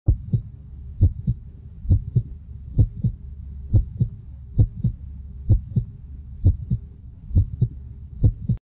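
Heartbeat sound effect: ten paired low thumps in a steady lub-dub rhythm, a little over one beat a second, over a low steady hum. It stops abruptly at the end.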